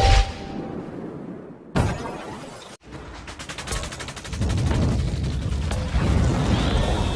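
Intro sound effects: a heavy boom, a sudden crash about two seconds in, then rapid clicking over a swelling low rumble, with a falling tone near the end.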